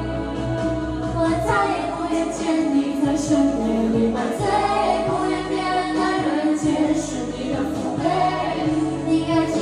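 A song with sung vocals over instrumental accompaniment.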